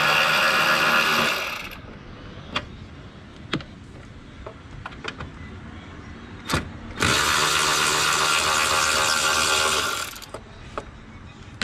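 Handheld power tool motor running in two bursts of about three seconds each, one at the start and one about seven seconds in, with a few sharp clicks of tools being handled in between.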